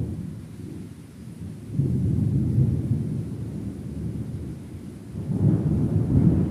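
Thunder rumbling in rolling waves: a loud peak right at the start that dies away, then deep rumbles swell up again about two seconds in and once more past the five-second mark.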